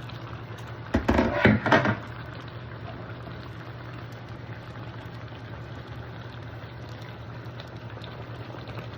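Chicken bubbling in bourbon sauce in a pan, a steady simmer over a low hum. About a second in, a loud burst of clattering noise lasts about a second.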